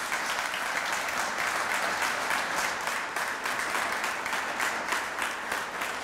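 Audience applauding, many hands clapping steadily.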